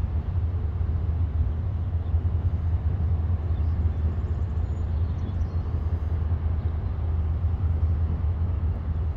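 Steady low drone of a Canada Steamship Lines lake freighter's shipboard machinery running alongside the bank.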